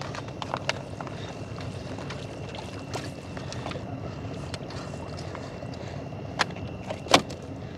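Small boat's engine running steadily, with scattered light clicks and two sharp knocks near the end as the gill net is hauled aboard.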